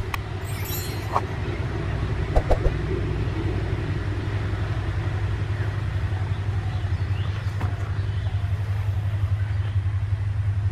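Diesel locomotive of an approaching passenger train running with a steady low drone, with a few short knocks in the first few seconds.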